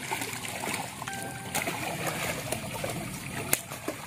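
Freshly stocked bawal (freshwater pacu) splashing at the surface of a fishing pond, with a couple of sharper slaps of fish hitting the water about a second and a half and three and a half seconds in.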